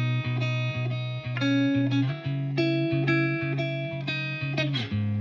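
Background music led by guitar: sustained chords over a held bass note, changing chord about every second or so.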